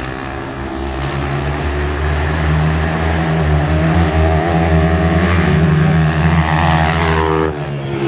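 Dirt bike engine revving hard under load, its pitch and loudness climbing over several seconds, then dipping briefly near the end before picking up again.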